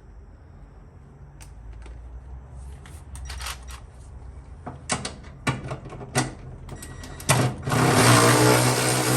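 A few clicks and knocks of parts and tools being handled, then about seven and a half seconds in a power tool with a wire wheel starts up and runs steadily.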